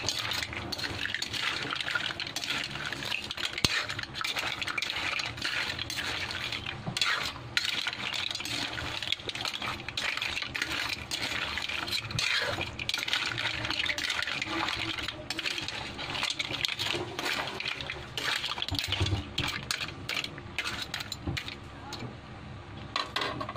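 A metal ladle scraping and clanking in a metal wok as crabs, mussels and shrimp are stirred, the shells clattering against each other and the pan in a rapid, irregular clatter.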